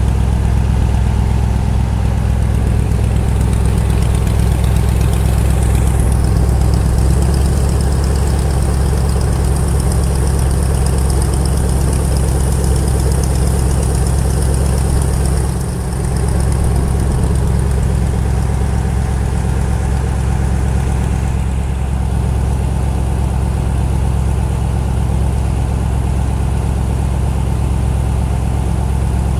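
The Strizh-7 passenger motor boat's engine running steadily under way, with water rushing along the hull.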